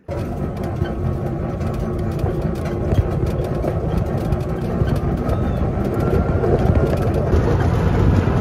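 Side-by-side utility vehicle driving along a dirt trail: steady engine and ride noise with many small knocks and rattles.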